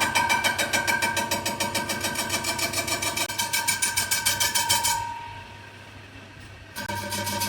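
A machine running with a fast, even pulsing and a steady whine. It cuts out about five seconds in and starts again near the end.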